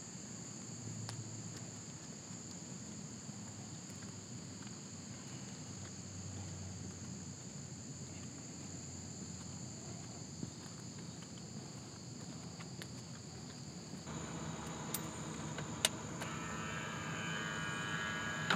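Steady outdoor insect chorus, a high continuous chirring, over a low rumble. In the last few seconds it grows louder as a car approaches, with a single sharp click just before the end.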